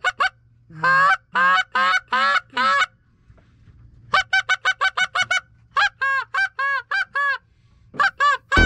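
Canada goose honking and clucking, loud and close: runs of quick, clipped clucks alternate with slower, longer honks, with short pauses between the runs.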